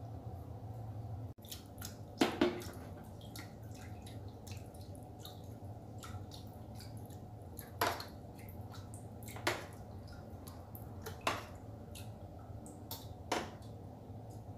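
Spoon paddles of a rubber-band-powered bottle boat splashing water in a small plastic tub: light drips and splashes, with a sharper splash every couple of seconds, the loudest a pair about two seconds in, over a steady low hum.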